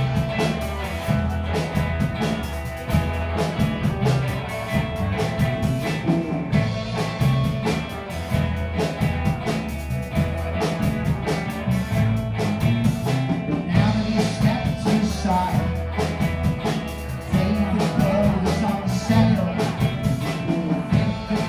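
Live rock band playing: electric guitars over drums and a bass line, with keyboard, amplified through the club's speakers.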